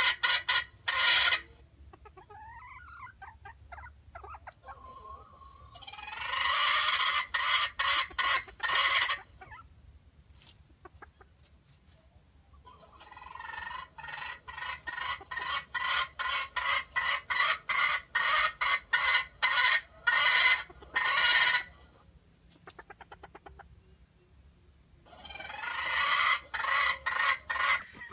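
Jungle fowl clucking in long bouts of rapid, evenly spaced clucks, several a second, each bout swelling in loudness, with pauses of a few seconds between bouts.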